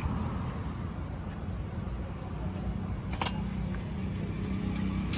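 A low, steady mechanical rumble, with a faint steady hum coming in about halfway through and a light click about three seconds in.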